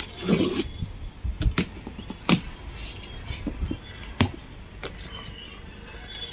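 Scissors cutting the packing tape on a cardboard box and the cardboard flaps being pulled open: a scraping rustle at the start, then a string of sharp clicks and knocks over the next few seconds.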